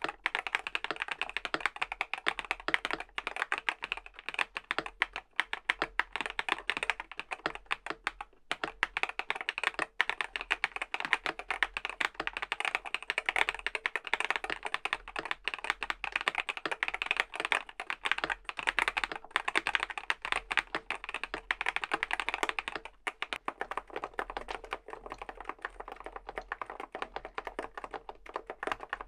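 Fast, continuous typing on a Groovestone (Mstone) GS series mechanical keyboard with Hanui switches: a dense stream of key clicks, broken by a couple of short pauses.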